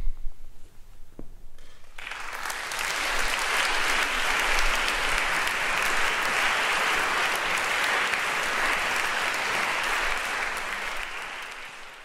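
Concert-hall audience applauding at the end of a choral piece. The clapping breaks out about two seconds in, holds steady, and starts to fade near the end.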